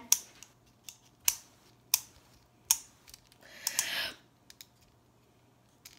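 A plastic retractable pen clicked several times, single sharp clicks at uneven gaps, with a short breathy rush of air around the middle.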